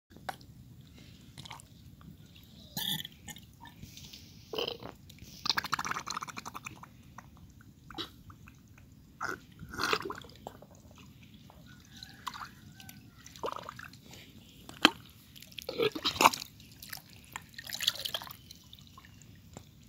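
Hands and arms digging in thick wet mud and muddy water: short wet squelches at irregular intervals, the loudest near the end.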